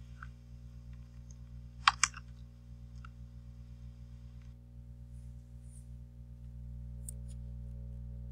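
A sharp double click on a computer about two seconds in, and a few faint ticks later, over a steady low electrical hum from the recording setup.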